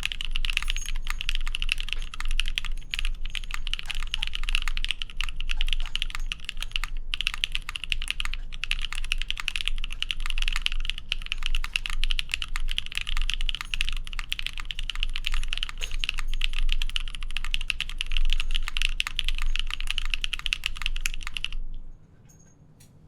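Fast continuous typing on a mechanical keyboard with stock Aflion Tropical Waters switches, a POM plate and OG NCR dye-sub keycaps, with a short pause about 7 s in; the typing stops abruptly about 22 s in.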